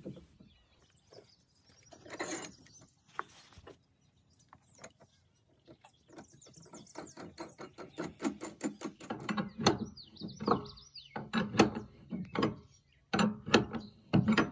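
Ratchet wrench clicking in quick runs as it tightens a nut and washer onto an eye bolt through a wooden dock frame. There are a few scattered knocks first, and the clicking starts about six seconds in.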